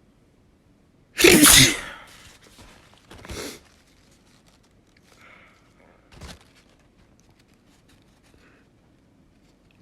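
A person sneezing loudly once, about a second in, followed by two shorter, quieter bursts of breath a couple of seconds and about five seconds later.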